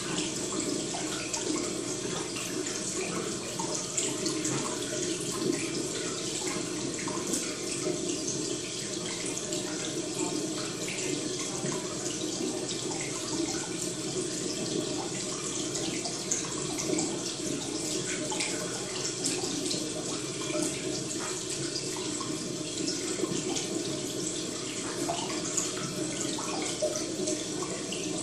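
Steady sound of running water, even and unbroken, with faint scattered ticks.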